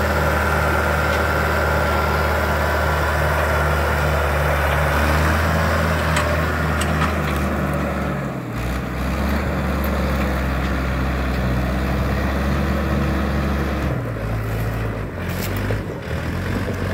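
Mahindra Arjun diesel tractor engine running steadily under load while pulling a heavily loaded sugarcane trailer. Its low, even engine note shifts a little past the halfway point and again near the end.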